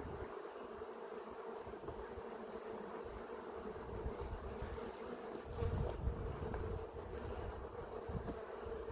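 Mass of honeybees buzzing steadily around a newly installed hive, a constant hum. A few low bumps a little past the middle.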